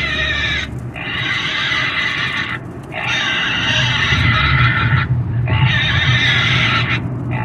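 Pig squealing loudly in a run of long, high-pitched squeals, each a second or two long, with brief breaks for breath between them and a low rumble underneath.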